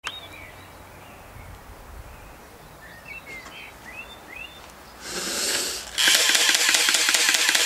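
Birds chirping a few times over quiet outdoor background. About five seconds in comes a short hiss, and about a second later a loud, steady buzzing noise with a fast rhythm begins.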